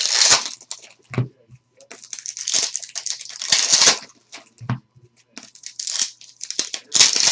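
Trading card pack wrappers being torn open and crinkled by hand. The crackling comes in several bursts, with a couple of soft knocks in between.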